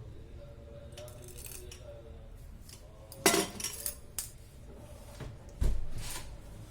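Kitchen utensils and containers being handled: a sharp clatter about three seconds in, a few lighter clicks, then a heavier knock near the end as something is set down.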